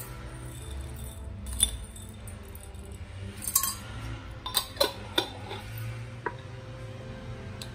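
Metal spoon clinking against glass spice jars and a stainless steel grinder cup while whole cumin seeds and black peppercorns are spooned in, the seeds rattling into the steel cup. Scattered sharp clinks: one about a second and a half in, a cluster of several between three and a half and five and a half seconds, and one more near six seconds.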